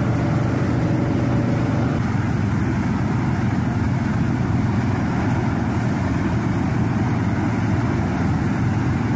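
A tractor pulling a propane flame-weeding boom: the engine runs with a steady low hum under a constant rushing noise, with no change throughout.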